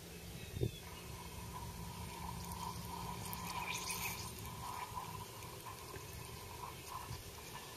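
A lump of sodium-bearing slag plops into a glass of water, and the water then fizzes and bubbles as the sodium reacts with it and frees itself from the slag.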